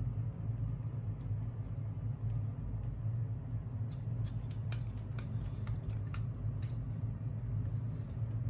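A steady low hum, with a quick run of light clicks and taps about halfway through.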